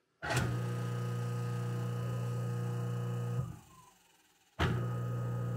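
InSinkErator 3/4 HP Quiet Series garbage disposal running dry with a steady low hum: switched on, it runs about three seconds, winds down, then is switched on again about a second later. It runs super quiet.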